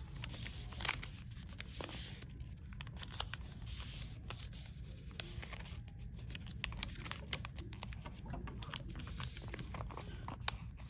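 Sheet of paper being folded and creased by hand on a wooden desk: light, irregular rustles and crinkles as the corners are pressed into the centre and the sheet is folded in half.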